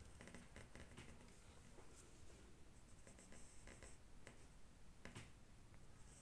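Faint scratching of an HB pencil drawing a freehand curve on paper, in short broken strokes.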